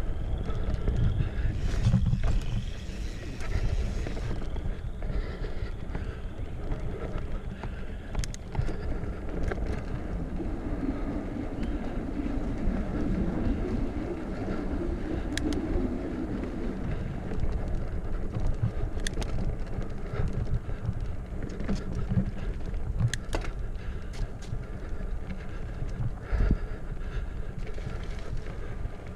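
Mountain bike riding a dirt trail, heard from a chest-mounted action camera: a steady rumble of wind buffeting and tyre noise, broken by scattered sharp knocks and rattles over bumps.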